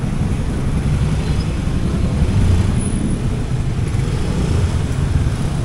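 Steady low rumble of street traffic, motor vehicles running and passing.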